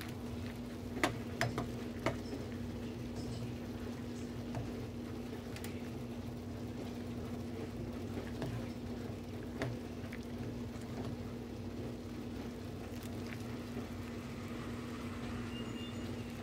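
Macaroni and cheese bubbling and being stirred in a stainless steel saucepan, with a few sharp clicks of the spoon against the pan, most of them about one to two seconds in, over a steady low hum.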